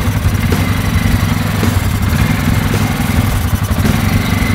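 ATV engine running steadily at low revs, with no revving.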